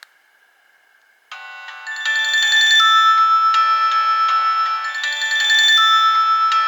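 Nokia 1800 mobile phone ringtone: a synthesized electronic melody of bright, clean notes, several sounding at once. It starts about a second in and grows louder half a second later.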